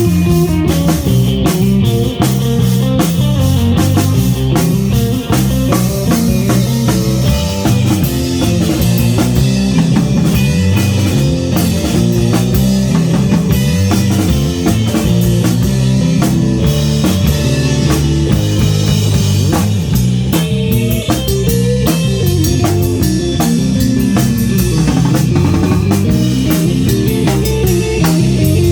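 Live rock band playing an instrumental tune on electric guitar, bass and drum kit, with a steady driving beat.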